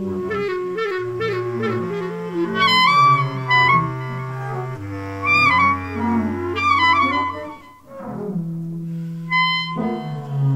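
Free-jazz ensemble improvisation: clarinet and alto saxophone play wavering, overlapping lines over long held low notes, with shrill high squeals about four times. The playing thins out briefly just before the last squeal.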